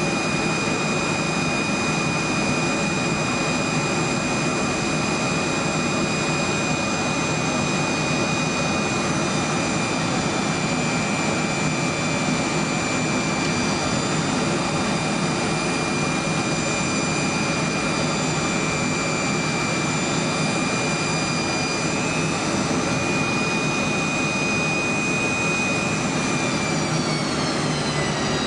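Boeing 727 cabin noise on landing: a steady jet roar with a high whine from the Pratt & Whitney JT8D turbofans, heard inside the cabin. Near the end the whine slides down in pitch as engine power comes back.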